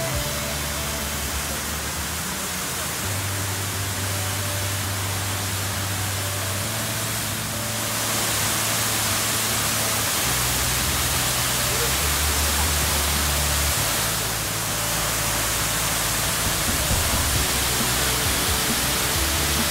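Fountain water falling and splashing into its basin, a steady rushing hiss, under background music with slow, long-held low notes.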